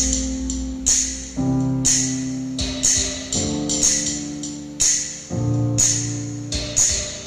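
Recorded music played loud through a Tsunami Live D15 speaker box in an amplifier sound test: held chords that change every second or two, with a sharp, bright percussion hit about once a second.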